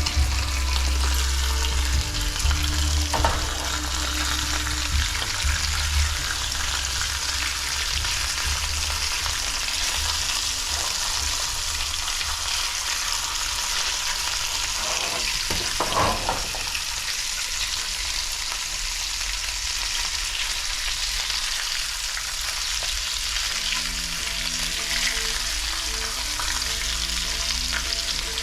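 Kahawai fillets sizzling steadily as they fry in hot olive oil in a pan.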